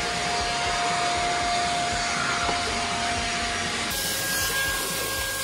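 Small handheld electric blower running steadily with a motor whine. About four seconds in, the whine changes to a higher pitch.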